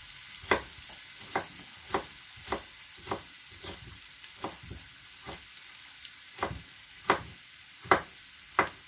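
Kitchen knife cutting carrot on a plastic cutting board: about a dozen sharp, uneven knocks, the loudest near the end. Behind them is the steady high sizzle of onions frying in a pan.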